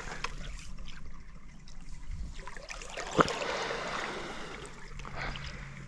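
Water lapping and trickling against a small fishing boat, with light ticks and one sharp knock about three seconds in.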